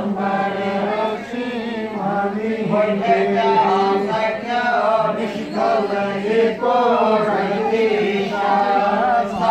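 A group of voices chanting Hindu ritual mantras together in unison, in continuous flowing phrases over a steady low drone.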